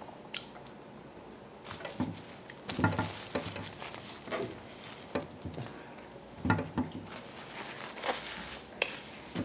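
Tabletop handling noises while eating: a string of light knocks and clicks as food containers and utensils are moved, with a stretch of rustling a little before the end as a napkin is handled.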